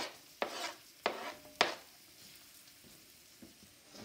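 Sliced onion going into hot oil in a non-stick wok: four quick sizzling bursts in the first two seconds as the pieces hit the oil, then a faint sizzle.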